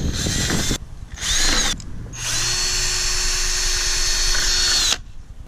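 Ryobi cordless drill with a 5/32 bit drilling into a plastic milk crate: two short runs, the second spinning up and down, then a long steady run of about three seconds with a high whine that stops abruptly.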